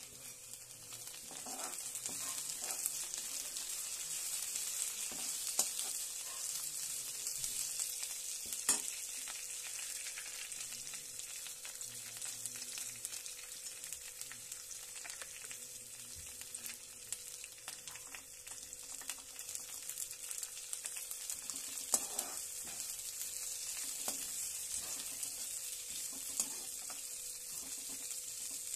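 Cumin seeds, sliced onion, green chillies and curry leaves sizzling in hot oil in a pan, a steady hiss, with occasional sharp clicks and scrapes of a steel spatula stirring in peanuts and green peas.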